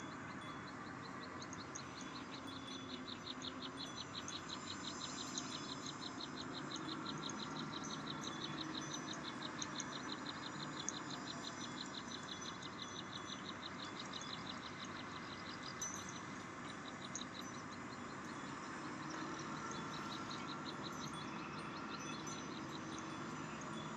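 Outdoor ambience of an insect trilling in a fast, even pulse train, which stops partway through and returns briefly near the end, with scattered bird chirps over a steady background hiss.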